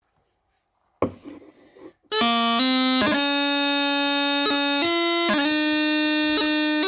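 Bagpipe practice chanter playing a slow melody. After a second of near silence and a short rustle, the reed sounds about two seconds in and holds steady, reedy notes, with quick grace notes flicked in between some of them.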